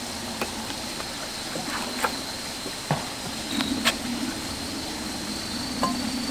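Soft footsteps on a wooden deck and light knocks and clicks as a plastic storage box is carried and set down, over a steady low hum that grows stronger about halfway through.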